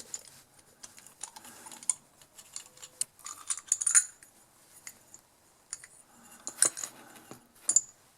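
Small metal clicks and clinks as a small-engine carburetor is taken apart by hand and its float bowl removed, with a few sharper knocks scattered through.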